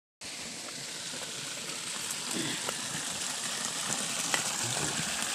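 Shallow jungle stream running over rocks, a steady rush of water, with a small click about four seconds in.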